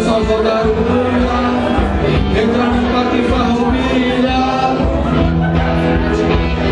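Live band music: a man singing into a handheld microphone over strummed guitar accompaniment.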